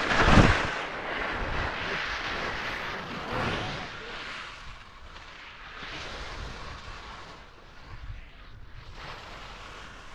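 Skis scraping and hissing over firm, wind-packed snow as a skier turns away downhill, loudest at first and fading as he moves off, with wind on the microphone.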